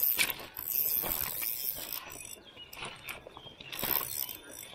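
Light, irregular clicks and rustles of a spinning rod and reel being handled.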